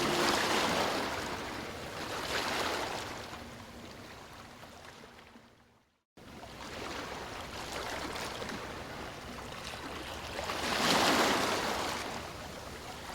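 Ocean surf: waves washing in and receding as swells of hiss, one near the start and a louder one about eleven seconds in. About halfway through the sound fades down to a moment of complete silence, then cuts back in.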